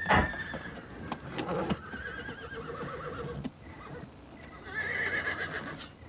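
A horse whinnying: quavering calls about a second and a half in and again near five seconds. A sharp knock at the very start, with a few lighter knocks.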